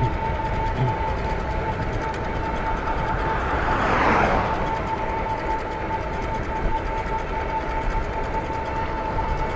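Mooncool electric bike's hub motor whining at a steady pitch while riding, over wind and road rumble. A broad rushing swell rises and falls about four seconds in.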